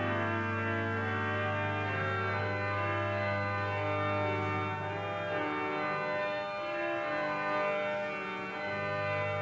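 Church organ playing a hymn tune in slow sustained chords over a held low bass note that stops about halfway through.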